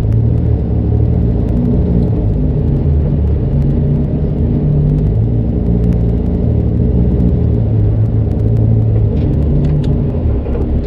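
Straight-piped Cummins diesel of a Kenworth C500 winch truck running at low speed, a steady deep exhaust rumble.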